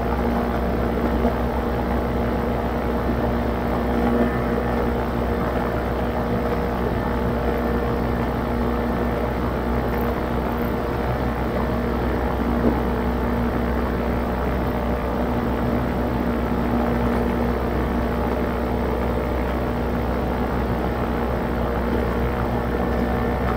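Paramotor engine and propeller running steadily at cruise power in flight, a constant drone holding one pitch throughout.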